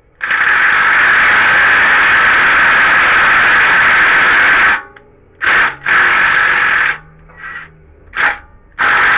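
A power tool spinning bolts into threaded holes to clean gunk off the threads, run in bursts: one long run of about four and a half seconds, then several short runs.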